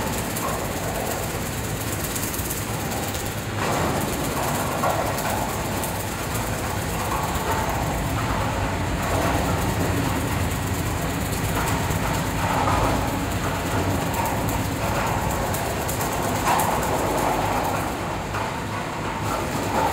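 Plastic raffia cutting machine with dust-removing blower running steadily, a continuous mechanical hum and rattle. The noise swells every few seconds as woven polypropylene bags are fed in and shredded.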